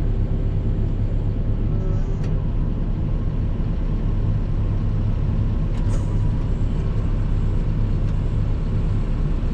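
Steady low drone of a tractor engine running at constant speed.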